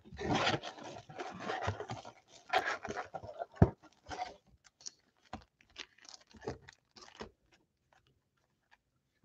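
Cardboard box flaps and wrapped trading card packs rustling and crinkling as the packs are pulled out of the box, followed by scattered light taps as the packs are set down in a stack.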